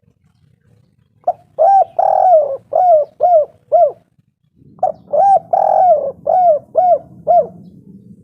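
Spotted dove cooing: two phrases of about six coo notes each, each phrase with one drawn-out note near its start, the first beginning about a second in and the second following a short pause.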